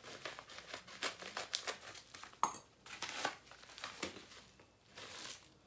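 Crinkling and rustling of a packaging bag being pulled open and handled, a run of short, sharp crackles with one louder one about two and a half seconds in.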